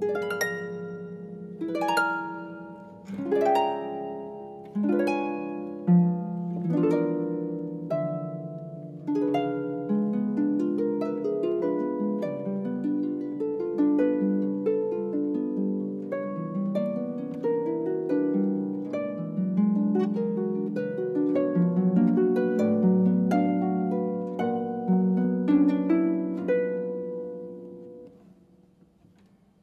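Solo harp playing a contemporary piece: a few separate plucked notes and chords ring out in the first several seconds, then a steady flow of quicker overlapping notes, dying away near the end.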